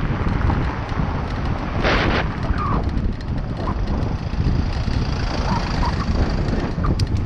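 Wind buffeting the microphone of a camera riding on a road bicycle, over a steady low rumble from the tyres on the brick road surface, with a louder rush about two seconds in.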